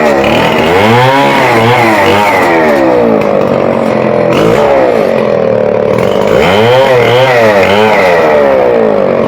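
Petrol chainsaw cutting a fallen tree, its engine pitch dipping and climbing back again and again as the chain works through the wood.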